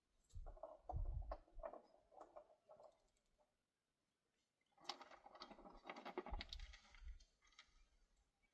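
Faint knocks, scrapes and low thumps of things being handled, with a short silent pause partway through and a denser stretch of scraping and rustling after it.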